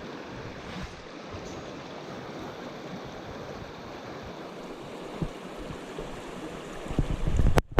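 Mountain stream running steadily, an even rush of water. Near the end, a short loud low rumble, then the sound cuts off abruptly.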